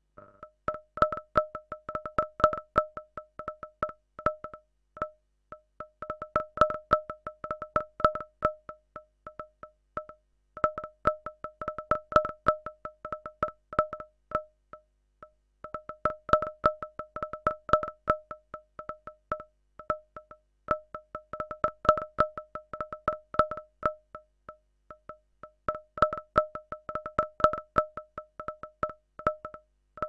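Synthesized rolling tin can from a Pure Data patch: a rapid, irregular stream of metallic pings ringing at two fixed pitches. It thickens and thins in waves that repeat about every five seconds, with a brief gap between each wave.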